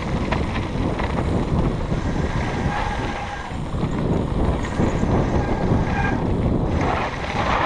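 Wind buffeting the camera microphone over the steady rumble of a Kona Process 134 mountain bike rolling fast down a dirt trail, with a few light clicks from the bike.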